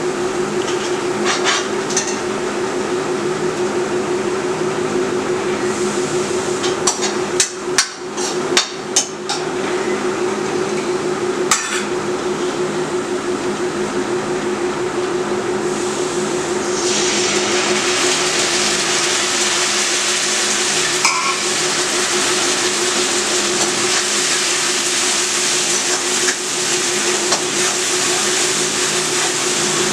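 Onions frying in a steel kadhai, stirred with a metal spoon that clicks and scrapes against the pan, over a steady hum from a running kitchen appliance. About seventeen seconds in, the sizzle turns to a louder, brighter hiss as chopped tomatoes go into the hot oil.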